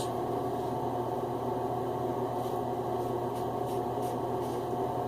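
A double-edge safety razor makes a few faint, short scraping strokes over a lathered scalp from about two seconds in, against a steady background hum.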